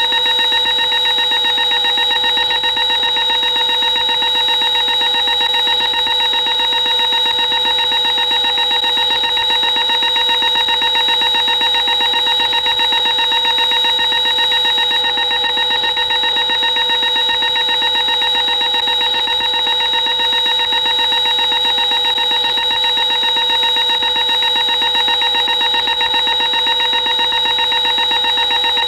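Sci-fi emergency alert alarm sound effect: a steady electronic alarm tone built of several high pitches, the lowest of them wavering slightly, at an unchanging loudness.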